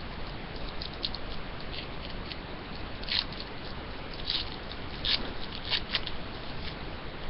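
Trading-card pack being opened and its cards handled: several short, soft crinkles of the wrapper and rustles of the cards.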